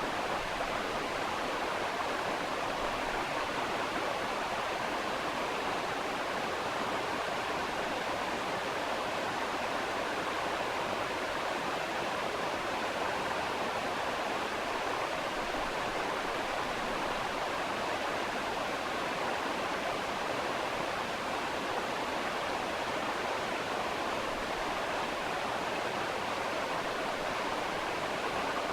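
Steady, even rushing noise like flowing water, laid over the video in place of the ultrasonic scaler's sound.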